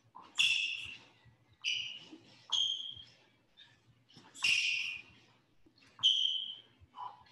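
A boxer's sharp hissed exhales through the teeth, one with each punch while shadow boxing a jab-and-slip drill: about six short, irregularly spaced hisses.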